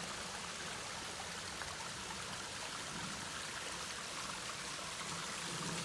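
Small waterfall trickling and splashing over rock crevices: a steady rush of running water.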